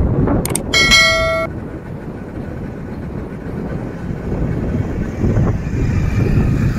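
Steady road and wind rumble from a vehicle driving on a paved road. About half a second in comes a click, then a short steady electronic tone that cuts off abruptly, the sound effects of a subscribe-button animation.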